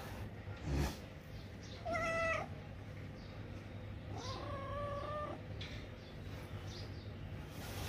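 Kitten meowing twice: a short meow about two seconds in, then a longer one that bends up at the start and holds steady for about a second. A short thump comes about a second in, before the first meow.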